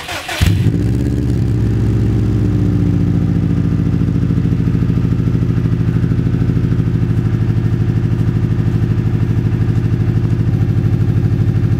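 Subaru WRX turbocharged flat-four boxer engine cold-started: a brief crank, it catches about half a second in, flares, then settles into a steady, pulsing idle through an exhaust with the resonator removed and an aftermarket muffler welded on.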